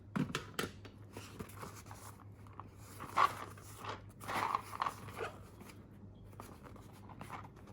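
Packaging being handled and opened: irregular rustling and crinkling with scattered light clicks, loudest about three and four to five seconds in, over a faint steady low hum.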